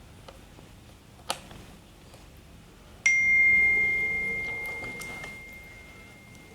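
A small sharp click, then about three seconds in a single clear bell-like ring that starts suddenly on one pitch and fades slowly over about three seconds.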